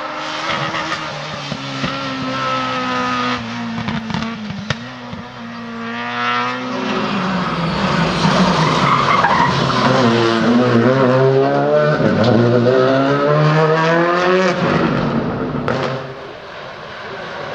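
Rally car engine revving hard, its pitch climbing and dropping again and again through gear changes and lifts. It grows louder about six seconds in, is loudest through the middle stretch, and falls away near the end.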